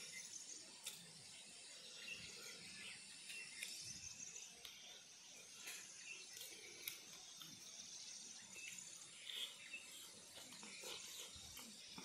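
Faint open-air ambience: soft, scattered bird chirps and insect calls, with a few small clicks from fingers picking food apart on a banana leaf.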